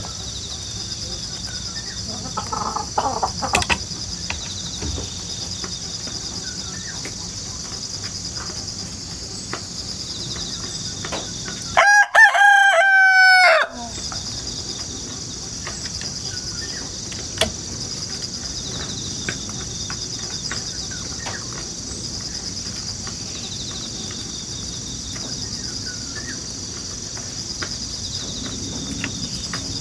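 A rooster crows once, a single long cock-a-doodle-doo about twelve seconds in. Grass insects chirr steadily and high-pitched underneath.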